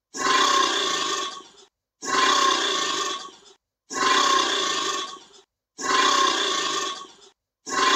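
Alligator call, a rough call about a second and a half long, repeated five times at even two-second spacing as identical copies of one looped clip.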